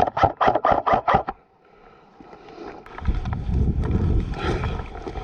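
Airsoft electric rifle firing a rapid string of shots, about six a second, stopping a little over a second in. About three seconds in a loud, low rumbling noise starts up.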